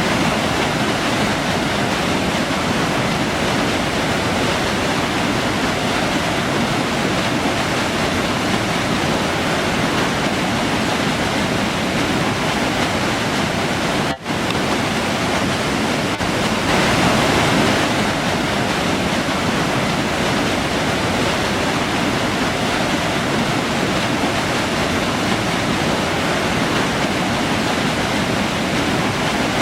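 A river flowing: a steady, loud rush of water. It cuts out for an instant about halfway through, and swells slightly a few seconds later.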